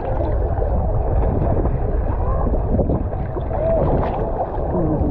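Loud, steady low rumble of wind buffeting the microphone, with faint wavering sounds in the background that may be distant voices.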